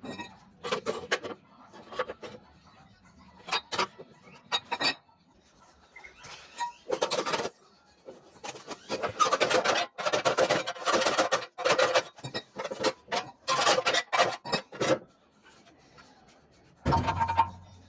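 Irregular scraping and rubbing with scattered knocks, heaviest in the middle, then a heavier thud near the end.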